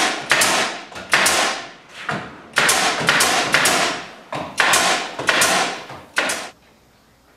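Pneumatic brad nailer firing brads through reclaimed barn boards into the wall: a quick run of about a dozen sharp shots, each with a short puff of exhaust air, some coming in quick groups of two or three. The nailing stops about six and a half seconds in.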